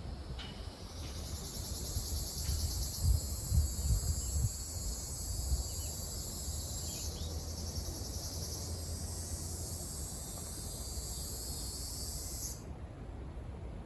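A male Ryukyu large brown cicada (Graptopsaltria bimaculata) singing a steady, high buzzing drone that strengthens a couple of seconds in and cuts off suddenly near the end, leaving a fainter cicada buzz underneath. A low rumble with a few thumps runs beneath it.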